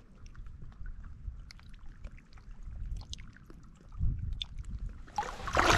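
Shallow lake water trickling and lapping in small ticks around a largemouth bass held by the lip under the surface, then a loud splash near the end.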